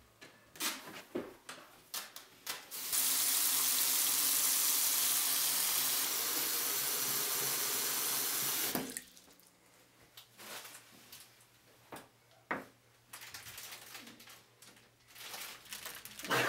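Bathroom tap running hard into a sink, a loud steady rush of water for about six seconds that stops abruptly. A few knocks and footsteps come before it, quieter scattered clicks after, and a short louder burst near the end.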